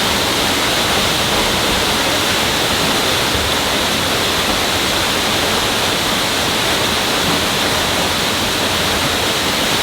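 Waterfall water rushing and splashing, a loud steady roar of falling water with no breaks.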